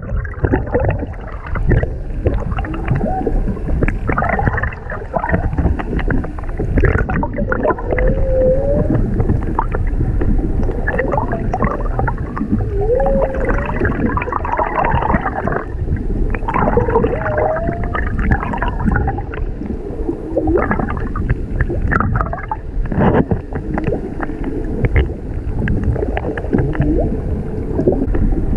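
Humpback whale song picked up underwater: a series of rising, bending calls, clearest in the middle of the stretch, over a steady wash and gurgle of water.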